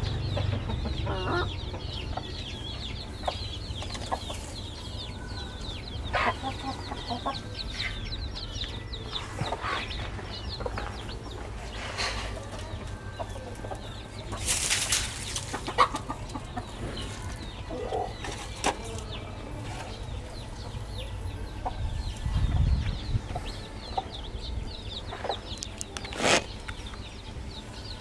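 Chickens clucking on and off, with faint high chirping and scattered small knocks. About halfway through there is a short loud rustle.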